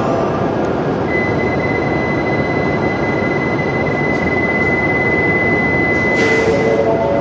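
An E7/W7 series Shinkansen standing at the platform: a steady, loud rushing hum. A steady high tone sounds from about a second in almost to the end, and a short hiss comes near the end.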